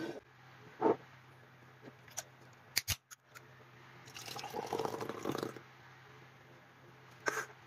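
A glass set down on a wooden table with a few sharp knocks, then a drink poured into the glass for about a second and a half, about four seconds in.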